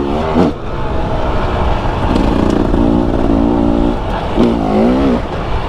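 Two-stroke KTM 300 EXC dirt bike engine running under way. Its note holds steady for a while, then rises and falls about four seconds in.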